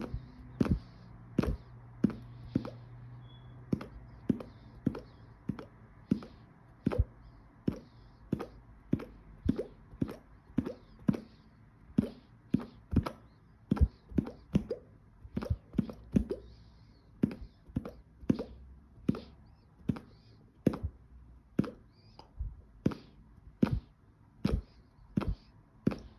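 Finger flicking puffed-out cheeks over and over, each tap a hollow plop like a drop of water falling, about two a second.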